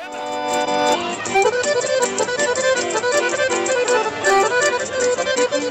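Accordion-led Serbian folk band playing a lively kolo dance tune: a held chord at the start, then quick runs of notes over a steady beat.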